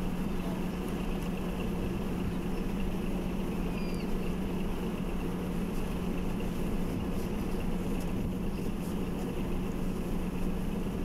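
Steady rushing noise with a constant low hum from the RS-25 rocket engine test stand during the automatic start sequence, in the last seconds before ignition; the engine has not yet fired.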